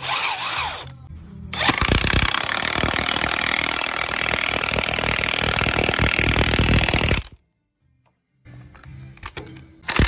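DeWalt high-torque cordless impact wrench hammering a lag bolt down into timber, a rapid steady rattle of impacts lasting about six seconds that stops abruptly.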